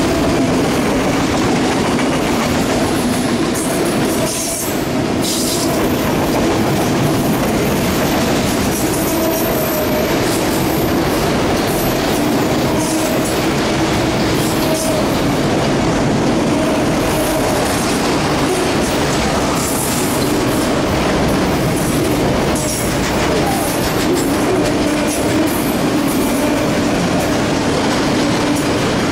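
Empty autorack freight cars rolling past: a steady rumble and rattle of steel wheels on rail, with a wavering wheel squeal that comes and goes.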